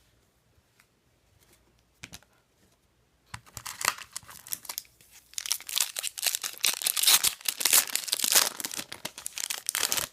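A foil trading-card pack wrapper being torn open and crinkled, starting about three seconds in and running loud to the end. It is preceded by a single light click.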